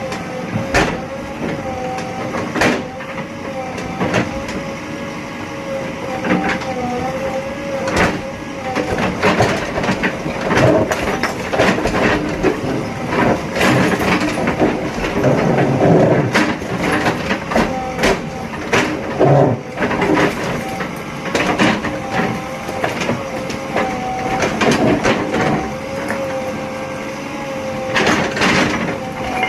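JCB 3DX backhoe loader working, its engine and hydraulics running with a steady, wavering whine under many sharp knocks and clanks, which come thickest in the middle.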